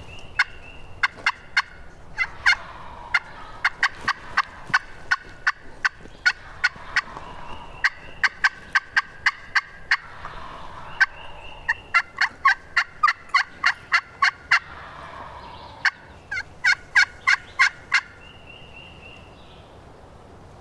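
Wild turkeys calling: several runs of sharp, quick notes, about three to four a second.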